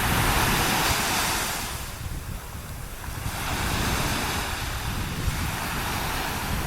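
Waves washing onto a sandy beach, their hiss surging, easing about two seconds in, then building again. Wind buffets the microphone with a low rumble.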